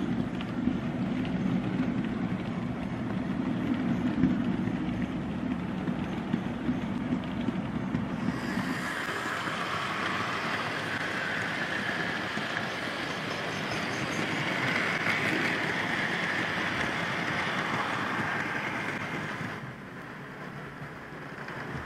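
A train running on rails: a steady low rumble of wagons rolling, which changes about eight seconds in to a higher-pitched rolling noise and falls quieter near the end.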